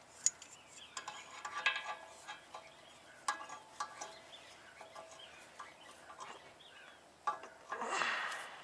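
Metal-on-metal clinks and taps as the jaws of a claw-type hub puller are set and centered on a car's rear wheel hub, with a longer, louder scraping rattle near the end.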